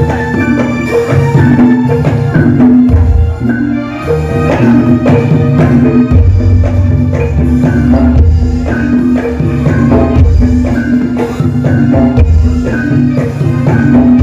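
Jaranan gamelan ensemble playing a lively piece: kendang hand drums beat a busy rhythm over sustained gong and metallophone tones and keyboard.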